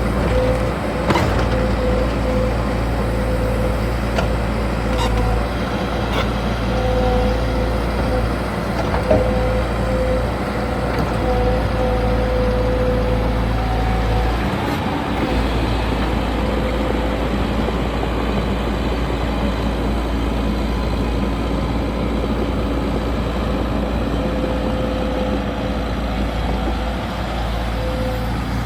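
JCB 140 excavator's diesel engine running steadily as the machine travels, with a whine that comes and goes and a few sharp clicks in the first ten seconds.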